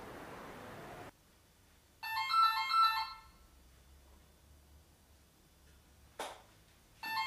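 A phone ringing with a short melody of electronic beeps, each ring about a second long: once about two seconds in and again near the end.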